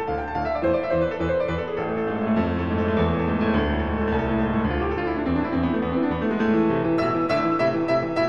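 Background piano music, with a run of quick, crisp notes near the end.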